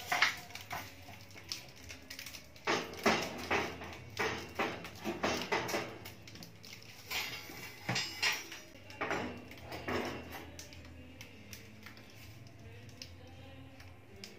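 Metal burner parts and the pan grate of a Fujidenzo gas cooking range being set back onto its stainless-steel top: a run of irregular clinks and knocks that thins out over the last few seconds.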